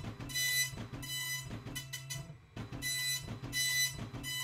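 Epson color dot matrix printer printing: the print head buzzes across the page in repeated passes less than a second apart, with short breaks between passes, over a steady low hum.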